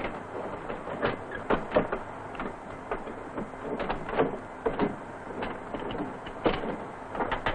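Metal ammunition feed chutes being hooked back onto an Emerson aircraft gun turret: a scattered series of sharp metallic clicks and clanks at irregular intervals, over a steady hiss.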